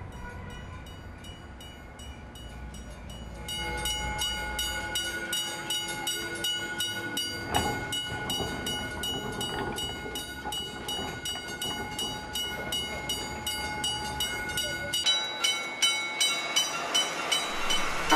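Railway level-crossing warning bell ringing in a rapid, even rhythm of about five strokes a second. It is faint at first and louder from about three seconds in. Its rhythm changes about fifteen seconds in, and the rising noise of an approaching train builds near the end.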